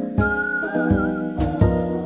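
Background music: a high, wavering whistled melody over sustained chords and a steady beat.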